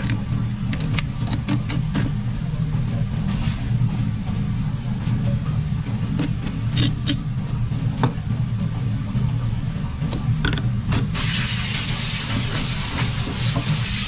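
A knife cutting a sevenband grouper on a plastic cutting board, with scattered sharp clicks and taps, over a steady low machine hum. About eleven seconds in, a tap is turned on and water runs in a steady hiss onto the fish and board.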